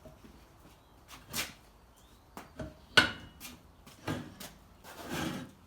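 Scattered knocks and clatter from working a garden tractor tyre and rim on a manual tyre changer, with the sharpest knock about three seconds in and a short rustle near the end.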